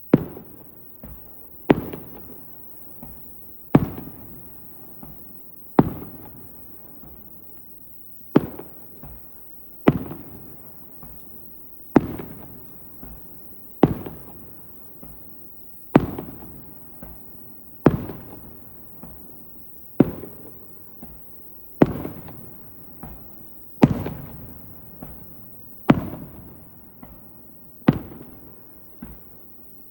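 Aerial firework shells bursting in the sky, one sharp bang about every two seconds, each trailing off in a long rumbling echo, with a few smaller pops in between.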